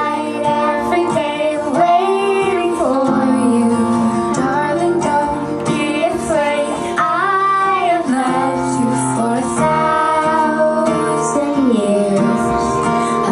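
A young girl singing a song into a handheld microphone over backing music.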